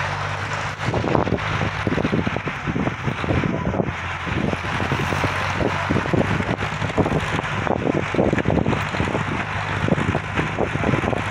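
A train of sleds being towed over packed snow: runners scraping and knocking irregularly, with a steady engine hum from the towing vehicle underneath.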